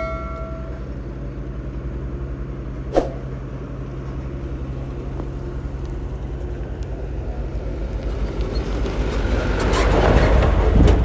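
An engine running steadily with a low hum, a single knock about three seconds in, and a louder vehicle noise swelling up near the end.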